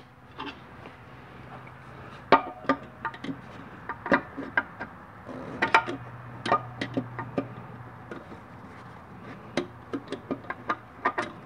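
Background music: short plucked guitar notes over a low held tone.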